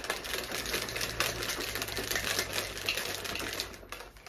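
A plastic shaker bottle holding a whey protein shake is shaken hard to mix it. The fast, dense run of knocks dies away shortly before the end.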